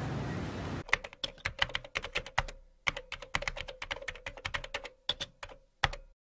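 Keyboard typing sound effect: a fast, uneven run of key clicks with a few short breaks, stopping abruptly near the end. It begins about a second in, where busy background noise cuts off.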